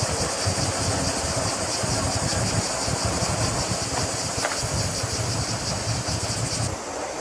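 A chorus of cicadas buzzing, high-pitched and steady with a fast shimmer, cutting off abruptly near the end, over a low uneven rumble.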